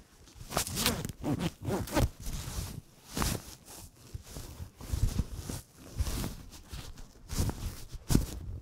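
Nylon puffer coat being put on, its fabric rustling and scraping against a clip-on microphone in irregular bursts.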